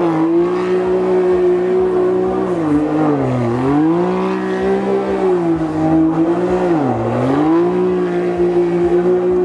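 Can-Am Maverick X3's turbocharged three-cylinder engine held at high revs while the side-by-side spins donuts in dirt; the pitch sags twice as the throttle is eased, then climbs straight back up.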